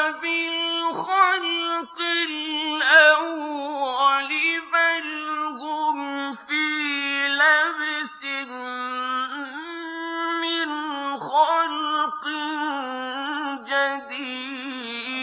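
A male voice chanting the Quran in the melodic mujawwad style: long held, ornamented notes that waver and bend, broken only by brief breaths.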